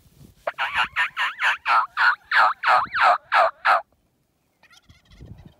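Loud turkey calling: a run of about thirteen notes, about four a second, each dropping in pitch. The run grows louder and stops short a little under four seconds in.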